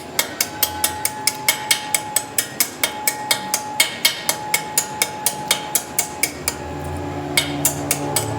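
A machine running with a steady tone and a rhythmic metallic clicking, about four clicks a second. The clicks stop for about a second near the end while a low hum swells, then start again.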